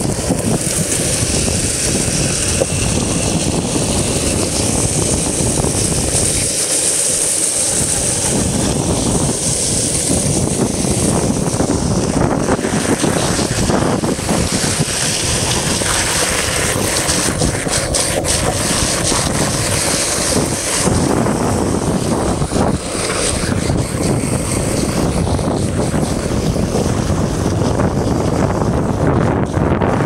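Longboard's urethane wheels rolling fast over rough asphalt, a steady road rumble mixed with wind noise on the microphone.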